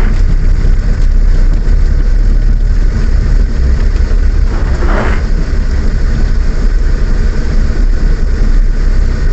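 A car driving in the rain, heard from inside: steady low engine and road rumble. A short swish comes about halfway through.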